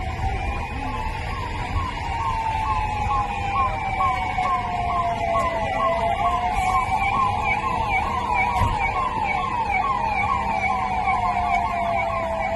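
Two sirens sounding together. One is a slow wail rising and falling over several seconds. The other is a fast yelp of about three sweeps a second, starting about a second in.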